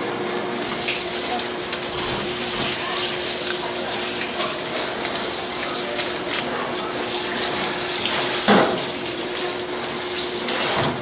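Kitchen faucet running onto a whole pineapple in a stainless steel sink, the stream spattering off the fruit and its leaves as gloved hands turn it; the water comes on about half a second in. A single sharper knock about eight and a half seconds in.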